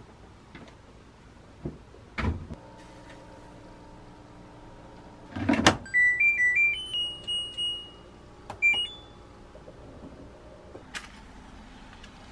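Front-loading washing machine: a loud thud, then the control panel beeping and playing its short electronic start-up tune of stepping tones as the buttons are pressed.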